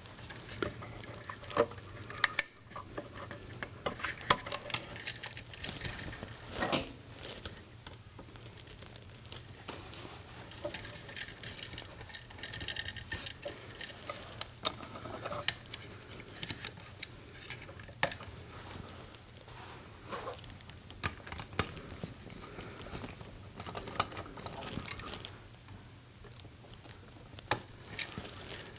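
Scattered small clicks, taps and scrapes of a ground wire and screwdriver being worked onto the outlet's green ground screw, over a low steady hum.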